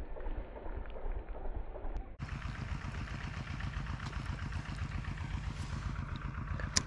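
A small engine running with a steady low hum and scattered rattling clicks, with one sharp click near the end; the sound changes abruptly about two seconds in.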